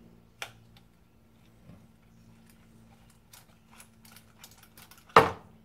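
Light scattered clicks and taps from hand work at the base of a motorcycle front fork leg, with one sharp clack about five seconds in.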